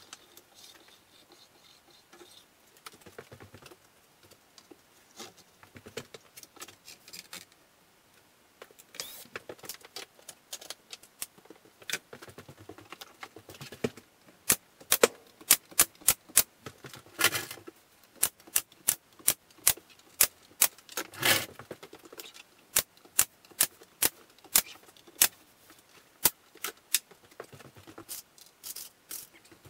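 Quiet knocks of wood being handled. Then, from about halfway through, a pneumatic nailer fires a long series of sharp shots, about one or two a second, as a glued board is tacked down along its length.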